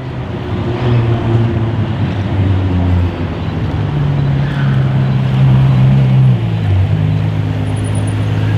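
Ferrari F12berlinetta's V12 engine through a Capristo aftermarket exhaust, running at low revs as the car rolls slowly, a deep steady drone with a small shift in pitch about six and a half seconds in.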